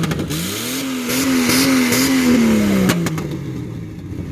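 Jeep Wrangler TJ engine revving hard while driving in sand, its pitch climbing and wavering, then dropping off about three seconds in. Brief clicks come near the start and at the drop.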